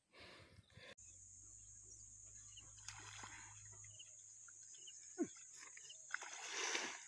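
A steady high-pitched insect drone, with a few faint chirps and a noisy swell of grass rustling near the end.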